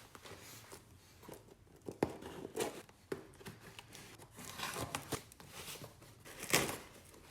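Hands opening a shipping parcel: packaging tearing and crinkling in irregular bursts, with a sharp click about two seconds in and the loudest tear near the end.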